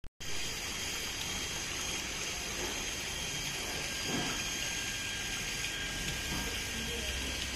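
Steady sound of running water in a koi pond, with no break.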